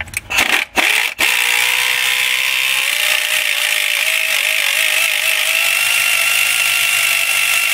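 A power ratchet backing out a power steering pump mounting bolt. A few short blips of the trigger come first, then it runs continuously for about seven seconds with a steady hiss and a whine that rises slightly.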